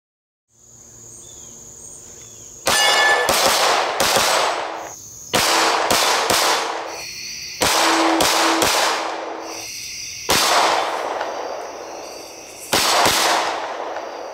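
9mm pistol firing at night in five quick strings of several shots each, about two and a half seconds apart, each string trailing off in echo, with steel-target ringing after some hits. Insects chirp steadily underneath.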